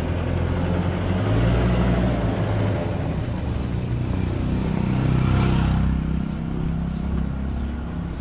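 Motorcycle engine running as it rides up and passes close by, loudest about five seconds in and fading after.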